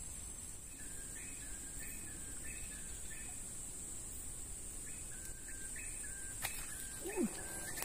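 Outdoor swamp ambience: a steady high-pitched insect drone, with a bird repeating a short two-note call, a higher note stepping down to a lower one, about twice a second in two runs.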